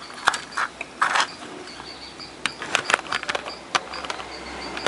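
Scattered sharp clicks and light knocks of bench handling, with a faint high chirp repeating in the background.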